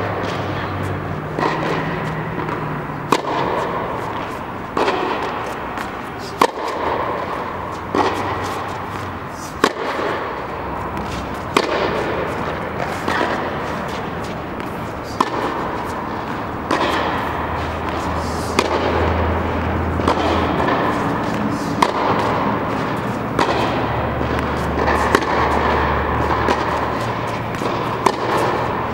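Tennis ball struck by racket in a rally, sharp hits about every second and a half to two seconds, in an indoor tennis dome over a steady background hiss.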